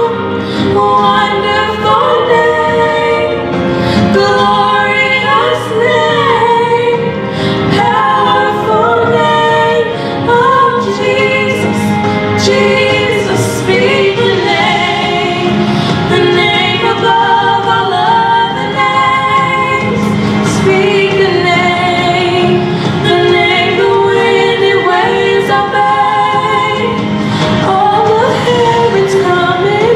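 Two women singing a worship song as a duet over instrumental accompaniment.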